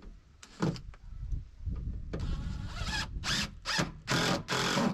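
Cordless screw gun running in a string of short trigger bursts, quicker and closer together in the second half.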